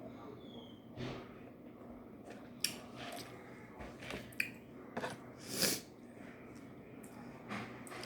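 A person chewing food close to the microphone: irregular soft mouth noises and smacks, with a few short, louder noisy bursts, the biggest a little past halfway.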